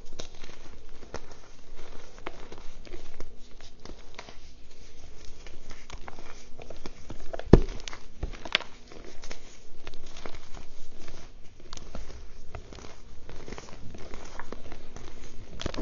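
Reformed gym chalk crumbled and crushed between the fingers: a dense run of small crunches and crackles as chunks break and powder sifts down. One sharper crack about seven and a half seconds in is the loudest.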